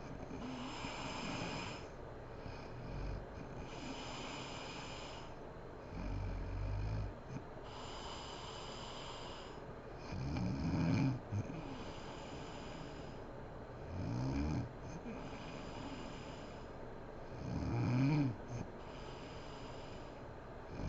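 A sleeping woman snoring: low snores come about every four seconds, the loudest near the middle and near the end, with airy breaths between them.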